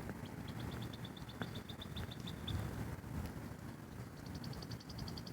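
A bird calling in rapid runs of short, high, evenly spaced notes. One run lasts about two seconds; a second, higher run starts near the end.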